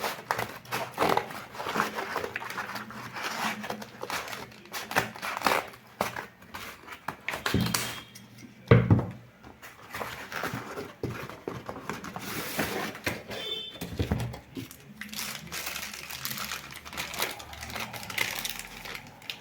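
Unboxing noises: a cardboard box and its plastic wrapping handled, rustling and crinkling with scattered clicks and knocks, and one loud thump about nine seconds in.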